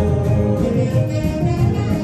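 Loud dance music with singing over a heavy beat, played through PA loudspeakers.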